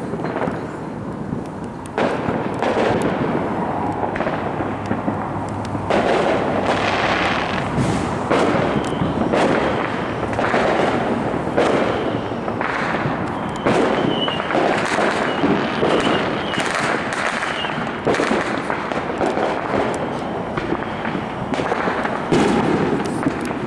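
Fireworks going off in quick succession: a dense, continuous run of bangs and crackling, with a brief high whistle about halfway through.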